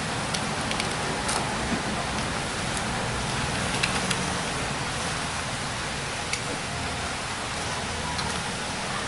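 Steady hiss with a scattering of light clicks and ticks from a small screwdriver and screws being taken out of a laptop's bottom cover.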